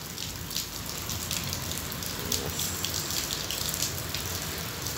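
Heavy rain falling steadily, with many sharp drops splattering close by.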